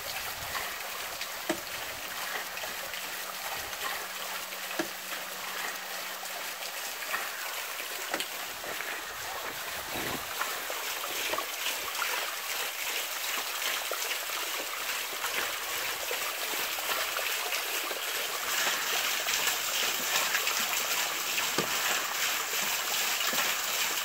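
Running water splashing, a steady rush that grows somewhat louder in the last few seconds, with a few faint knocks scattered through it.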